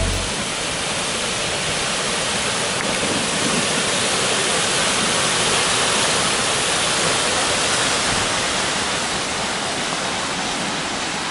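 Waterfall rushing: a steady, even hiss of falling water with no breaks.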